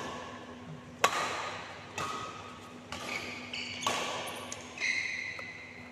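Badminton rally: rackets striking a shuttlecock about once a second, six sharp hits echoing in a large hall, with short high squeaks of court shoes on the floor mat near the end.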